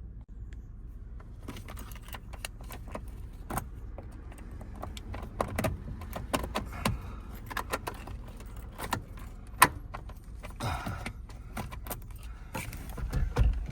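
A bunch of metal keys jangling and clicking, with many light irregular clicks starting about a second and a half in and one sharper click later on.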